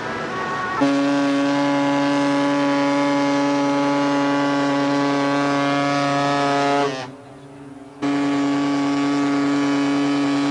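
A ship's horn sounds one long, steady blast of about six seconds, stops for about a second, then sounds a second blast.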